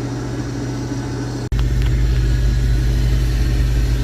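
Combine harvester running steadily while harvesting, a constant machine hum and low rumble. About a second and a half in the sound cuts off for an instant, and afterwards the low rumble is louder.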